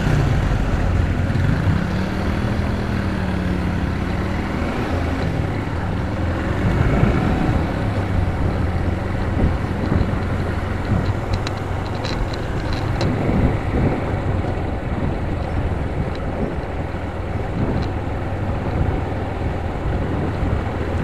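Motorcycle engine running at low road speed, its note rising and falling with the throttle in the first half, under steady wind noise on the microphone.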